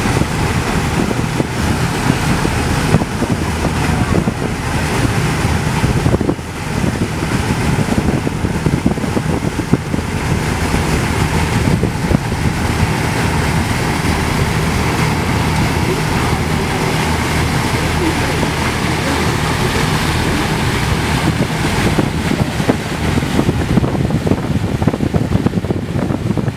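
Tour boat's engine running with a steady low hum, under a constant rush of water along the hull and wind buffeting the microphone.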